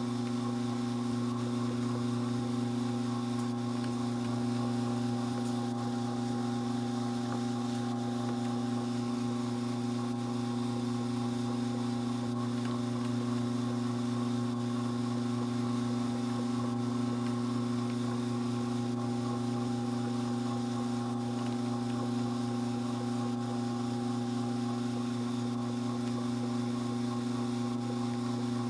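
Strauch Mad Batt'r electric drum carder running at a constant speed, its motor and turning drums giving a steady, even hum while it cards dog hair.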